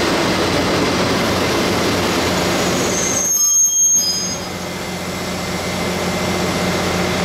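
Taiwan Railway electric locomotives rolling slowly into a station with a steady rumble and electric hum; about halfway through, high-pitched brake and wheel squeal rises briefly as the train comes to a stop, leaving the standing locomotive's steady hum.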